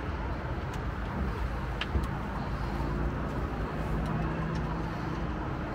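Steady low rumbling background noise heard while riding an open aerial gondola car, with a faint low hum joining about halfway through and a soft click about two seconds in.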